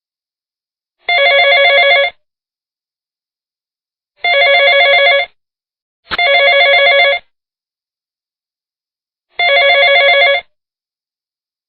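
Telephone ringing: four trilling rings about a second long each, with silent gaps between them. The second and third rings come close together, and the third starts with a sharp click.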